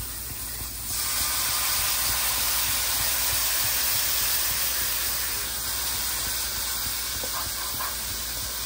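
Food frying and sizzling in a hot cooking pot: a steady hiss that turns louder about a second in.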